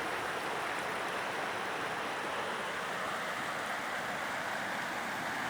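Steady rush of the Arkansas River's flowing water, an even noise that does not change.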